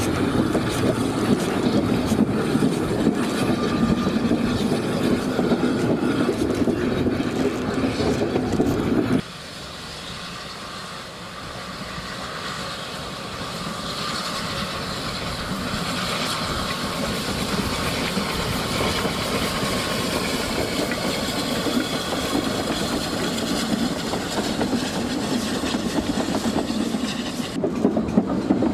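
The K1 Garratt, an articulated narrow-gauge steam locomotive, working a passenger train, with the running of the carriages on the rails. About nine seconds in, the sound cuts abruptly quieter and then builds steadily as the train draws near.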